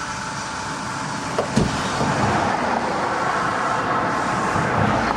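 Car engine running at idle, with a short knock about one and a half seconds in. The engine has a cylinder 4 misfire that the code scanner reports.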